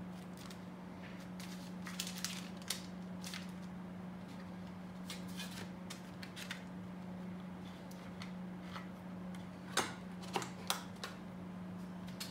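Wooden cigar boxes and their sliding lids being handled: light clicks and scrapes of wood on wood, with a few sharper knocks about ten seconds in as boxes are moved on the humidor's wooden drawer shelves. A steady low hum runs underneath.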